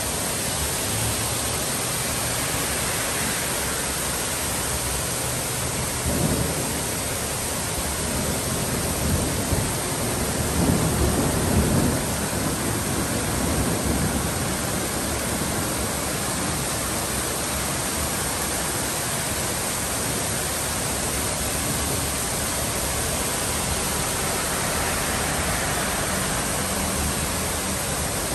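Heavy rain pouring steadily on a street, roofs and yard. A low rumble swells briefly about six seconds in and again from about nine to fourteen seconds.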